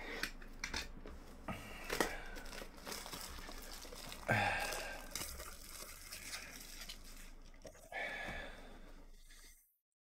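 Packaging of two Topps Chrome Sapphire trading card boxes being torn open: a run of crinkling and crackling, with a louder rip about four seconds in and another near the end, then the sound cuts off suddenly.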